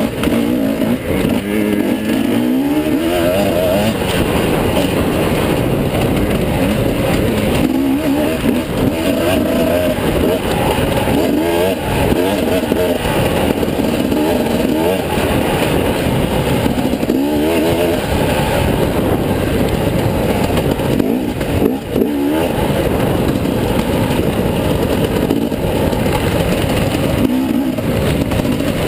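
Enduro dirt bike engine, heard close up from the bike's own handlebar camera, revving up and falling back again and again as the bike rides the trail.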